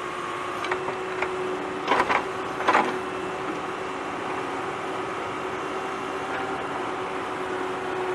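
Toy tractor's small electric motor and gears whirring steadily as it crawls over dry dirt, with a couple of brief rattles about two seconds in.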